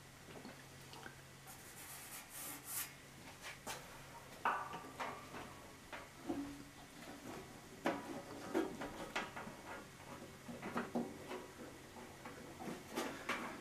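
Bead roller's steel die rolling a bead into bare aluminum sheet, metal on metal: faint rubbing and creaking of the sheet as it feeds through, with scattered clicks and knocks.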